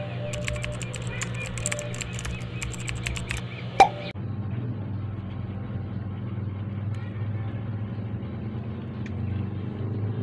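Steady low background hum, with a run of light clicks over the first few seconds and one sharp click just before four seconds in.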